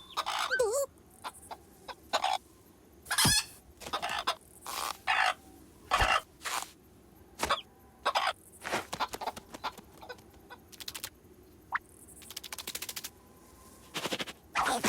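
Cartoon soundtrack of many short, separate sound effects and squawk-like animal vocal noises, with quiet gaps between them.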